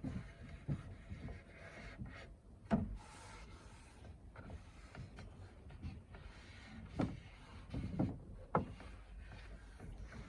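Wood being handled: irregular light knocks and rubbing, with the sharpest knock about three seconds in and a few more in the second half.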